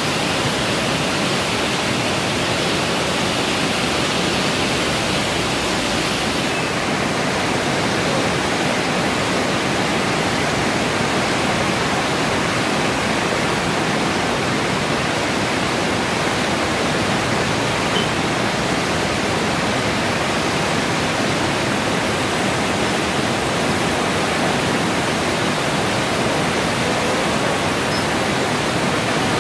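River in full flood: a steady, loud rush of turbulent muddy floodwater, its hiss thinning slightly about six seconds in.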